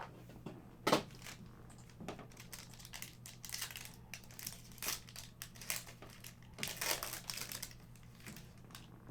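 Trading cards and a foil card-pack wrapper being handled: a run of short crinkles, rustles and clicks, with one sharper click about a second in.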